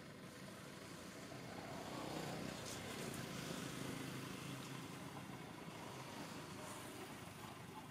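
Engine noise that grows louder about two seconds in and then slowly fades, as from a passing motor vehicle.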